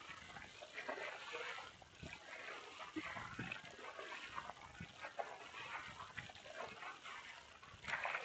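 Faint stand-up paddle strokes in flat lake water: the blade swishes and splashes through the water about once a second, with water dripping and trickling in between.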